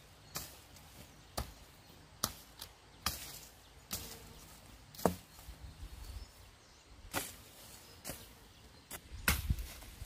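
Machete chopping down into dry ground and stubble: about ten sharp single strikes, irregularly spaced roughly a second apart, coming quicker near the end.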